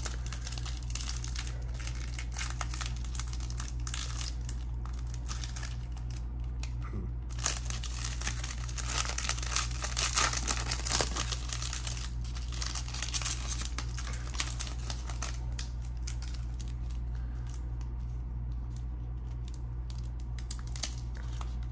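Crinkling and crackling of a clear plastic wrapper and a foil trading-card pack handled and opened by hand, irregular and busiest about nine to eleven seconds in.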